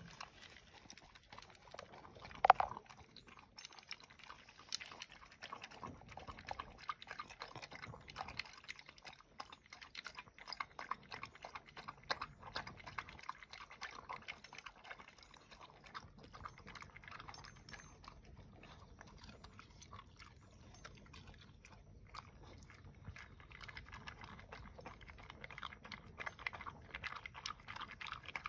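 Dog eating dry kibble mixed with chopped greens from a plastic bowl: steady, irregular crunching and chewing with many small clicks. One sharp, louder click comes about two and a half seconds in.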